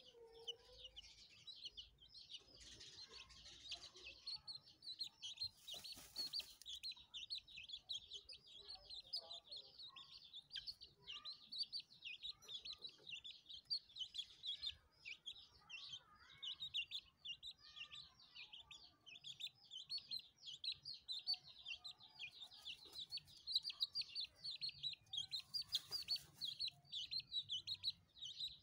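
Chicken sounds, most likely the chick peeping: a fast, continuous run of high peeps that never stops. There are a few short rustles of dry dirt, loudest at about six seconds and again near the end.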